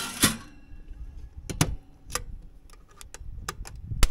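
Stainless-steel door of a 24-volt Travel Buddy oven being closed and latched: a short scrape, then a series of small metal clicks and knocks, the loudest near the end.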